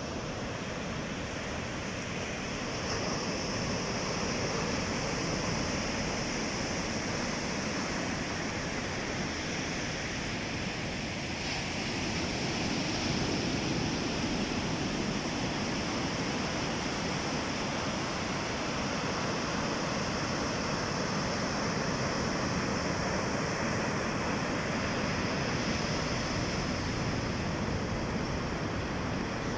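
Sea waves washing in: a continuous rushing surf that swells a little and eases again.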